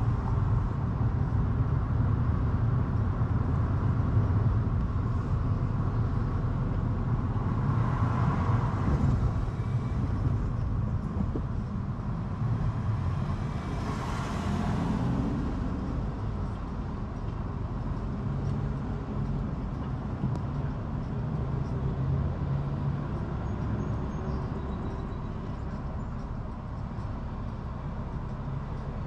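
Road noise of a car driving in city traffic: a steady low rumble of tyres and engine, with a passing vehicle swelling up about eight seconds in and again around fourteen seconds. The rumble grows quieter through the second half as the car slows and comes to a stop at a red light.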